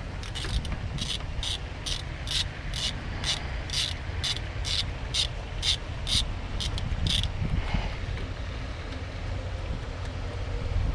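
Ratchet wrench clicking in a steady rhythm, about two clicks a second, as a water pump bolt is backed out; the clicking stops about seven seconds in.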